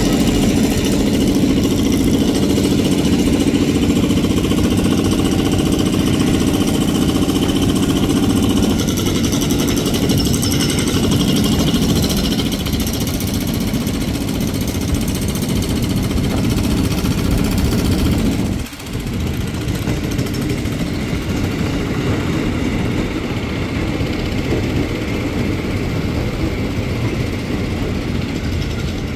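JR 205 series electric commuter train running toward the station: a steady motor hum over wheel-on-rail noise. About two-thirds of the way through, the sound cuts abruptly to another electric commuter train rolling along the platform, a steady rumble of wheels on rails.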